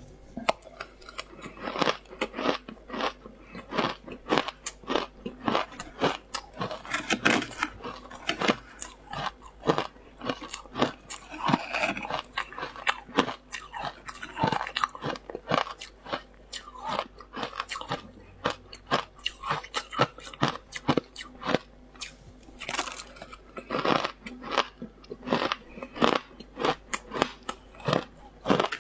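Close-up crunching and chewing of frozen matcha ice: a dense, irregular run of sharp cracks and crackles as the ice is bitten and ground between the teeth.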